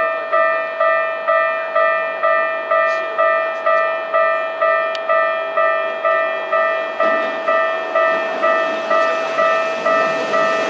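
Japanese level-crossing warning bell ringing steadily, about two strikes a second. Over the last few seconds the noise of an approaching train grows louder beneath it.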